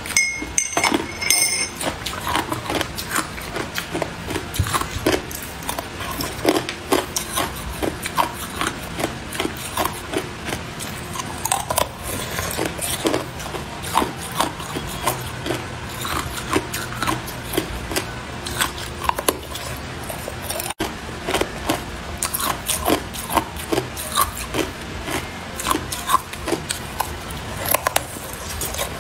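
Hard clear ice cracking, crunching and clinking against a glass and a metal spoon, a dense run of sharp, irregular clicks and cracks as the ice is scraped, handled and bitten.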